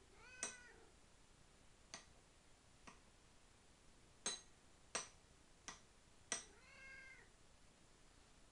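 Angora cat meowing for its food: a short meow near the start and a longer, drawn-out one near the end. Six sharp clicks fall in between.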